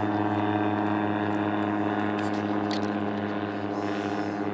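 Ultralight aircraft's engine and propeller running at a steady pitch, slowly getting quieter.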